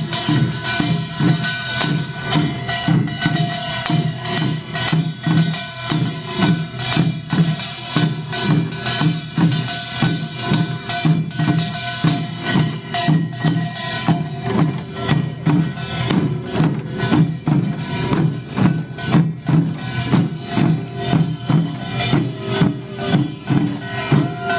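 Pungmul farmers' band playing: Korean drums and small hand gongs beating a steady, fast rhythm, with some ringing tones held over it.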